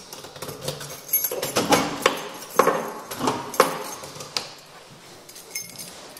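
Keys jangling amid a run of irregular knocks and clicks, busiest and loudest between about one and four seconds in.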